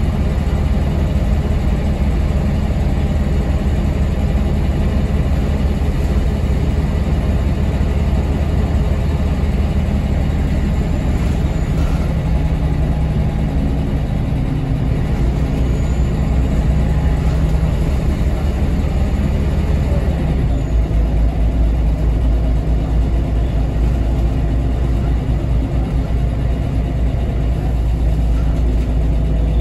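Inside the cabin of a 2006 Scania L94UB bus on the move: its Scania DSC9 six-cylinder diesel runs steadily through a ZF Ecomat automatic gearbox, with road and body noise. The engine note drops to a lower, heavier tone about twenty seconds in.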